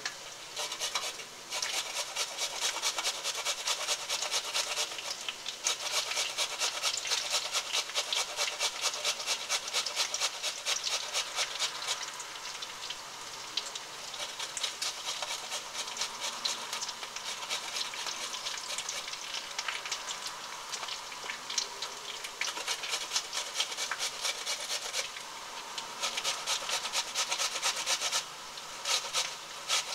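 Raw potato grated by hand on the coarse side of a metal box grater: a steady run of quick rasping strokes, with a brief pause near the end.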